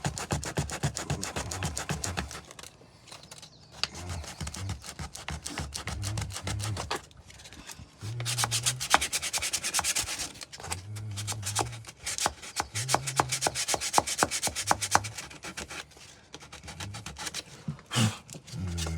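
Sandpaper rubbed by hand over hardened Bondo body filler on wooden brick mold: several runs of quick back-and-forth strokes with short pauses between them.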